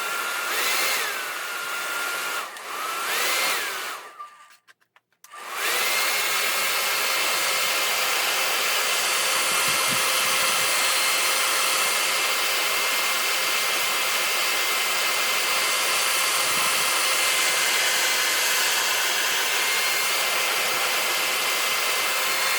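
Hot-air blower heating the tablet screen to soften its glue. It runs in two short spells with a whine that rises as it starts, cuts out for about a second, then runs steadily with a high whine until just before the end.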